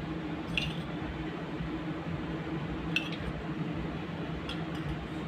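Metal spoon scooping mayonnaise from a small bowl into a stainless steel mixing bowl: three light clinks of spoon on metal, spread across a few seconds, over a steady low hum.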